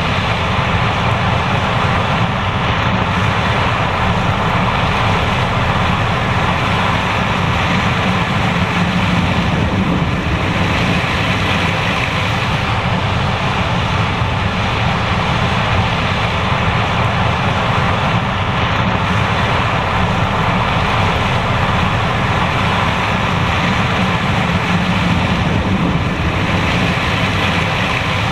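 John Deere S780 combine harvester running steadily under load, a constant loud machine drone with no change in pitch or level.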